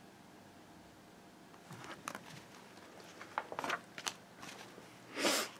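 Paper rustling and small clicks and knocks as a picture book is handled and its page turned, with a louder rustle near the end.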